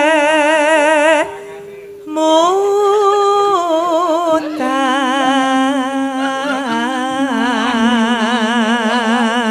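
A Javanese sinden singing a long sustained phrase with wide, even vibrato. The phrase breaks off about a second in, and a new one then rises and slides in pitch. From about halfway through, a steady low tone holds beneath the voice.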